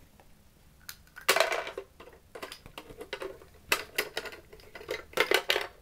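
Hard toy pieces rattling and clattering against a plastic toy garbage truck, in three short bursts.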